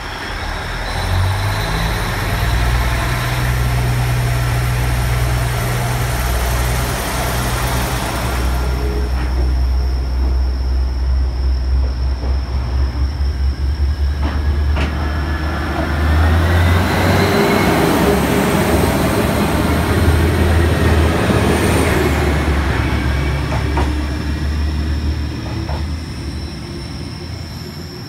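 JR East KiyaE193 'East-i D' diesel track-inspection train pulling away from a station: its diesel engines run with a deep steady drone, the note stepping up about a second in as it takes power. The cars then roll past with a loud rush of wheel and engine noise, which fades near the end as the train moves off.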